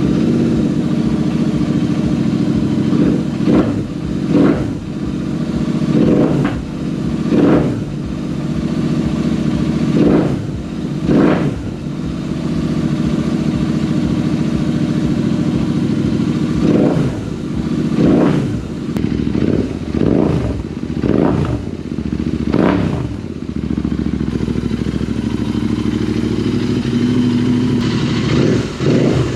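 2023 Royal Enfield INT650's 648 cc parallel-twin engine running through a Red Rooster Performance Stellar aftermarket exhaust with the baffles in. It idles just after starting, with repeated short throttle blips, often in pairs, the revs rising and falling back.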